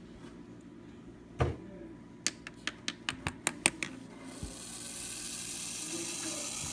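Western hognose snake hissing: a steady breathy hiss that starts about four seconds in and builds a little, its defensive 'false rattle' made with its breath. Before it come a single click and then a quick run of about eight sharp clicks.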